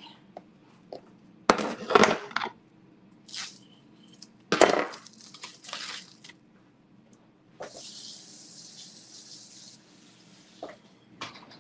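Kitchen handling sounds: a few sharp knocks and clatters of things set down on a stone counter, and a plastic bag being handled with a crinkling rustle. In the second half there is a steady high hiss lasting about two seconds.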